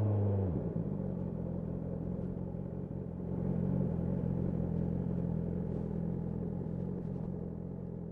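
BMW S1000R's inline-four engine dropping from a held higher speed back to idle about half a second in, then idling steadily.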